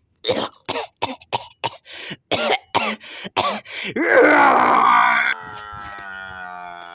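A person's voice making bear noises: a quick string of coughing, grunting sounds for about four seconds, then a loud growling roar that breaks off sharply into a long, steady, slightly falling held tone.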